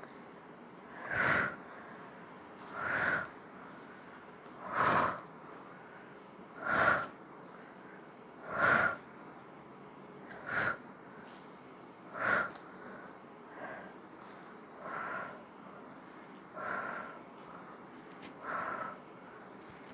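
A woman's sharp, forceful exhales, about one every two seconds, in rhythm with repeated hip-bridge lifts; the later breaths are softer.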